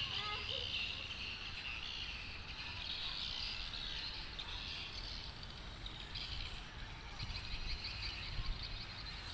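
A dense, continuous chorus of many swiftlets twittering, with a low rumble underneath.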